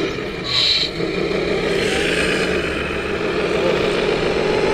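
Radio-controlled MAN KAT1 6x6 scale trial truck running as it crawls over concrete blocks: a steady motor drone that wavers in pitch, with a brief high-pitched sound about half a second in.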